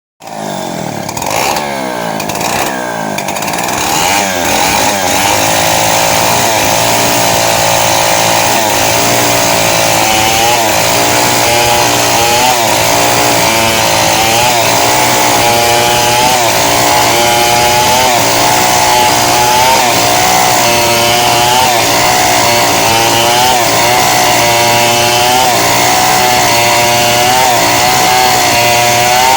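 Two-stroke chainsaw revving up over the first few seconds, then held at high revs, its pitch sagging and recovering every second or so as it labours in a cut.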